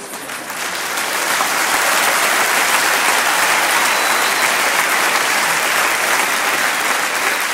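Live audience applauding, building over the first second or so, then holding steady.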